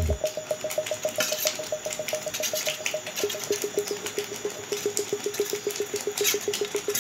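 Background music: a fast, evenly pulsing synth note with the bass beat dropped out, stepping down in pitch about three seconds in.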